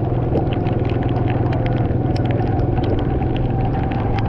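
Motorcycle engine running steadily at an even speed, a low constant hum with scattered sharp ticks over it.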